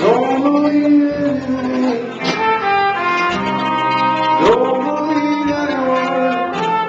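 A live band playing a song: held melodic notes, with sharp new attacks a little after two seconds in and again after four seconds.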